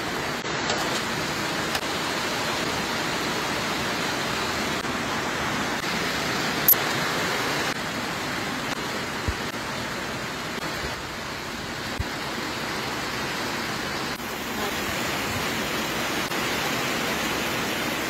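A pot of soup boiling hard over a fire: a steady rushing hiss, with a few faint clicks now and then.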